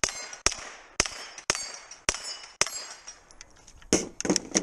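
Pistol-caliber carbine firing at steel targets: six shots about half a second apart, each trailed by a high ring. After a pause of about a second, a quick cluster of sharp cracks and clatter near the end.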